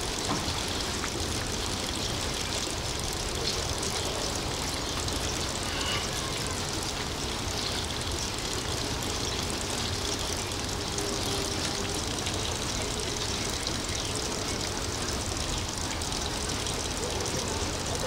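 Steady din of distant construction machinery: a continuous rumble and hiss with no distinct knocks or pauses.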